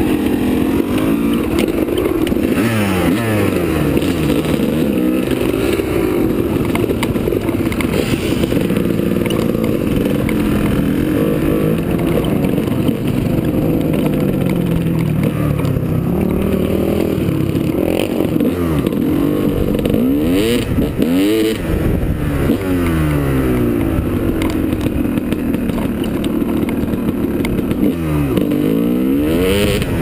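Dirt bike engine revving up and dropping back again and again as the bike pulls away and is ridden along a dirt trail through the gears.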